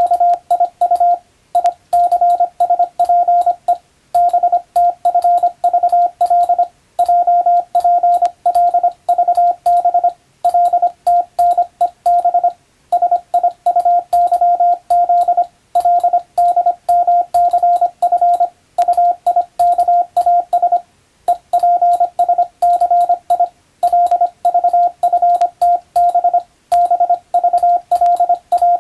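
Morse code (CW) practice tone: one steady beep keyed rapidly on and off in dots and dashes, sent in groups with short pauses between words.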